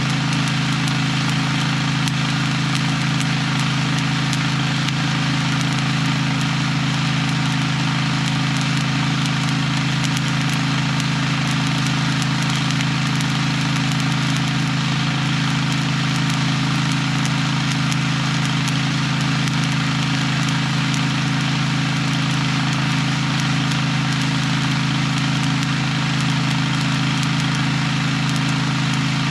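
Diesel engine of heavy earthmoving equipment running at a constant speed, a steady hum.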